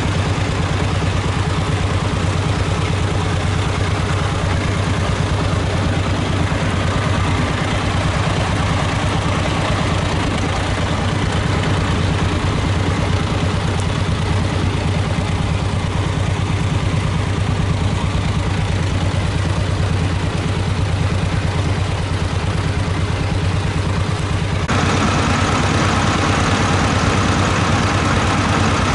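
Small vintage tractor's diesel engine running steadily while pulling a plough. About 25 seconds in, the sound cuts to another tractor's engine running, brighter and slightly louder.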